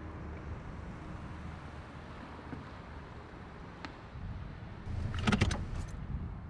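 Steady low rumble, with a single sharp click about four seconds in and a quick run of clicks and knocks just after five seconds, the loudest part.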